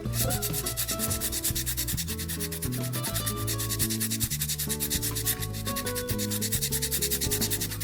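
Sandpaper rubbed rapidly back and forth over a motorcycle disc brake pad's friction surface, scuffing off the shiny glazed layer that causes brake squeal.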